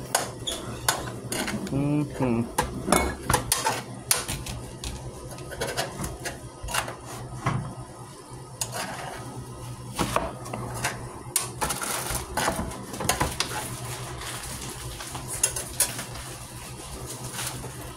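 Kitchen knife knocking on a plastic cutting board as vegetables are chopped, with clinks of jars and dishes: irregular sharp knocks over a steady low hum.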